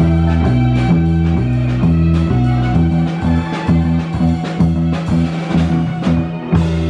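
A live rock band of electric guitars, bass and drum kit plays a repeating low riff over drum hits. From about three seconds in the playing turns choppy and start-stop, and near the end the band lands on a held chord that rings on.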